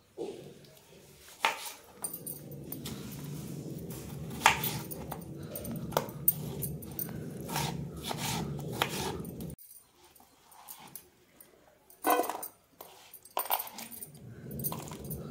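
Kitchen knife cutting tomatoes on a cutting board: scattered sharp knocks of the blade meeting the board, over a low background drone that stops abruptly about two-thirds of the way in. A couple of knocks near the end as the diced tomato is gathered into a steel bowl.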